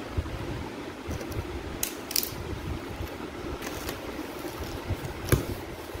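Electric fan humming steadily, with a few short knocks and rustles of a cardboard box being handled and its flaps opened; the sharpest knock comes about five seconds in.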